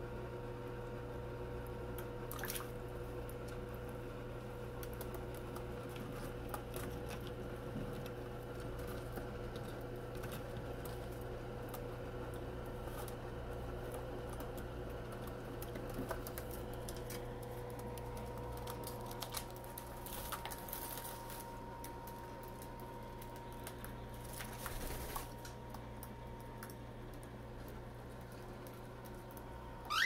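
Cockatiels bathing in shallow water dishes: soft splashing and feather fluttering, with a few brief louder splashes, over a steady low hum. A short rising chirp comes at the very end.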